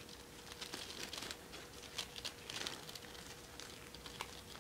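Faint rustling and a few small clicks of fingers handling a jointed Ever After High fashion doll, rubbing over her fabric dress and plastic necklace and accessories.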